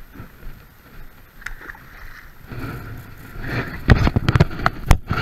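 Soft steady hiss of light rain, then rustling with sharp knocks and thumps on a chest-mounted GoPro's housing as the wearer moves. The knocks start about two and a half seconds in and are loudest near the end.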